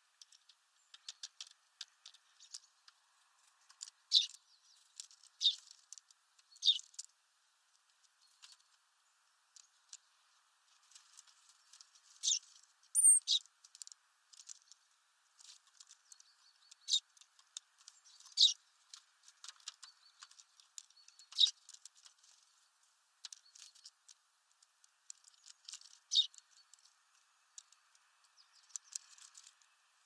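Irregular sharp taps and clicks of tree sparrows and a great tit pecking at seed on a feeder tray, some much louder than others. About halfway through comes a single short, high chirp.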